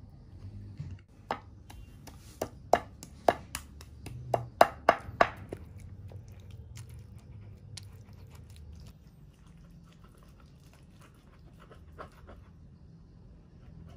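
Wooden pestle knocking and grinding fried tomatoes, shallots and garlic in a wooden mortar (Indonesian ulekan and cobek) to make sambal. A run of about nine sharp knocks from about a second in, then quieter crushing with one more knock near the end.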